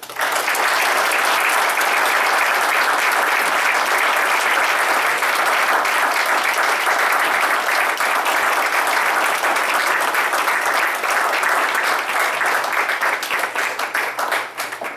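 Audience applauding, starting all at once and thinning into scattered claps over the last few seconds.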